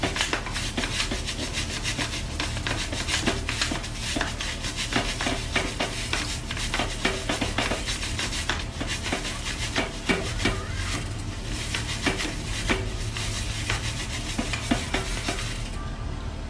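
Stiff brush scrubbing the rear cassette sprockets and chain of a wet mountain bike: fast scratchy rubbing with small clicks as the crank is turned backwards so the sprockets and chain run against the brush. The scrubbing breaks off briefly near the end.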